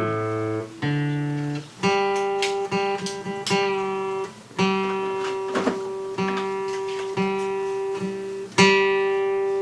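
Guitar being tuned up: the same note plucked over and over and left to ring, with a few chords strummed in between.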